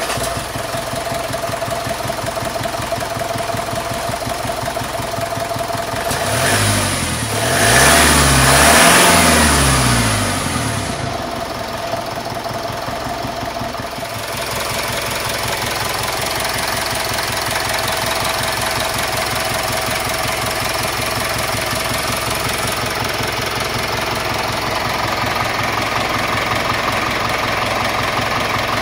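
Mitsubishi Fuso 4P10 four-cylinder turbodiesel running at idle, heard from the open engine bay. It is revved up and back down about six to eleven seconds in, then settles to a steady idle.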